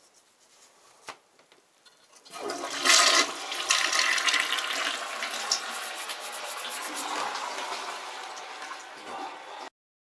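Water rushing: a sudden surge a little over two seconds in that is loudest at first, then tapers off slowly over several seconds and cuts off abruptly near the end.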